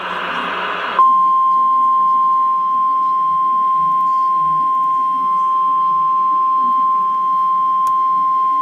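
NOAA Weather Radio alert signal: the tail of a harsh, warbling SAME digital data burst for about a second, then the single steady 1050 Hz warning alarm tone, which is held unbroken and signals that a warning is about to be read.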